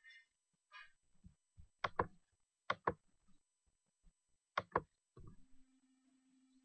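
Computer mouse clicks picked up by the microphone: three pairs of short, sharp clicks, each a press and release, about a second apart. A faint steady hum starts about five seconds in.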